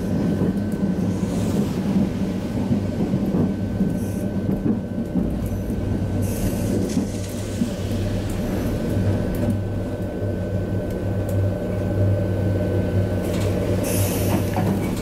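Inside a Hakodate city tram (car 719): a steady low hum with a faint thin high tone, and brief rattles and clicks a few times.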